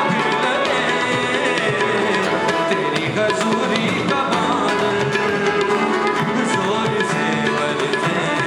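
Live band playing a Hindi-Urdu Christian worship song, with sustained instrument chords over a steady drum rhythm; a voice sings briefly near the start.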